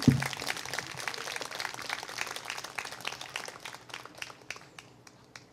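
Audience applauding: dense clapping that thins out and dies away over about five seconds, with a brief knock right at the start.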